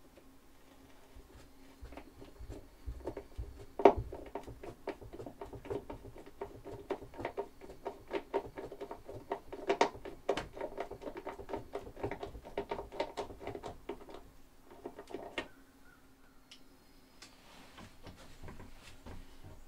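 Wooden cupboard door and its hinge hardware being handled and fitted: a run of irregular clicks and knocks, with one sharp knock about four seconds in, stopping a few seconds before the end. A steady low hum sits underneath.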